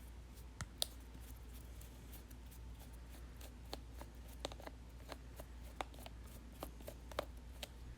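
Faint, irregular small clicks and handling of a small plastic toy as a screwdriver works at its battery cover.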